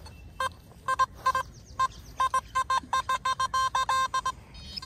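Nokta Makro Simplex+ metal detector giving a burst of short, same-pitched beeps, about a dozen of them, some running together, as the coil sweeps over a buried metal target.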